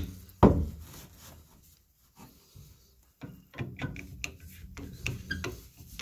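A steel chisel blade, ground flat as a wide screwdriver, working in the slot of a brass Moen 1423 balancing spool: one sharp metal knock about half a second in, then, after a short lull, a run of irregular small clicks and scrapes as the blade is seated and worked to loosen the mineral-crusted spool.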